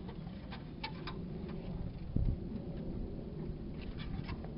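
Light, scattered clicks of a screwdriver and gloved hands working at a radiator hose clamp, with a single low thump about two seconds in, over a steady low background rumble.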